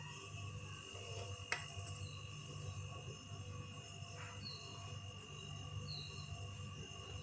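Faint steady hum, with a single light clink about a second and a half in as a serving spoon ladling thick custard vermicelli knocks the dish, and a fainter knock a few seconds later.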